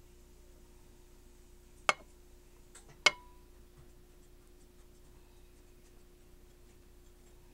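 Two sharp clinks of kitchenware, a dish or utensil knocking against glass, about a second apart; the second rings briefly. A faint steady hum lies underneath.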